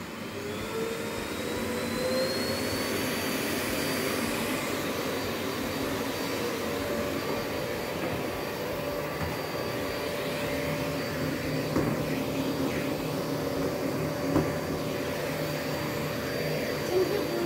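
Vacuum cleaner motor spinning up, its whine rising in pitch over the first couple of seconds, then running steadily while sucking up torn paper napkins.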